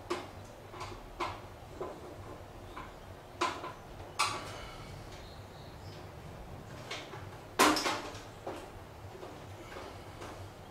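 Screwdriver and hands working in the sheet-metal wiring box of a ceiling-mounted electric garage heater: irregular clicks and knocks, about ten, the loudest about three-quarters of the way through.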